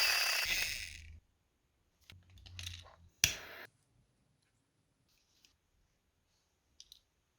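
A hiss fading out over the first second, then a few scattered light clicks, with one sharp click about three seconds in.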